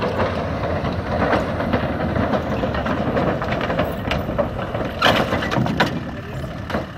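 A van's engine running as it drives slowly over a steel bridge deck, with the loose metal deck plates knocking and clanking under its wheels; several loud knocks come about five seconds in as the front wheels reach the buckled plates.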